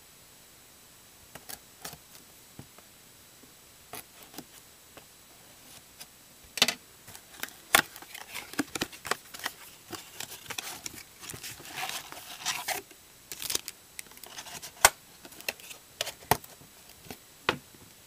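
A trading-card blaster box being opened by hand: a few light taps at first, then from about six seconds a busy run of sharp clicks and crinkling and tearing of cardboard and plastic wrap as the box is torn into and the packs come out.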